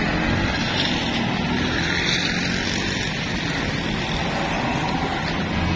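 Steady road-traffic noise, with car and motorcycle engines running and an even rushing hiss over a low rumble.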